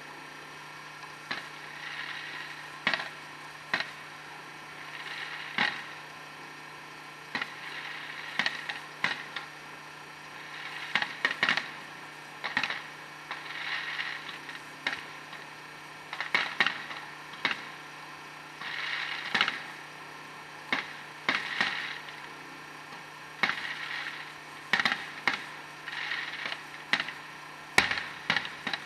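Fireworks going off: irregular sharp cracks and pops, a few close together, with short hissing spells between them.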